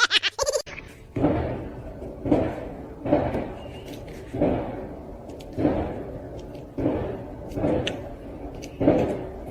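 A series of about eight thumps or bangs, roughly one a second, each starting sharply and fading quickly.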